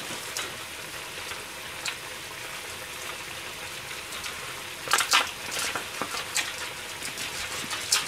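A pot of stew simmering on the stove with a steady bubbling hiss. About five seconds in there is a short burst of crackling and clattering, with a few single clicks around it.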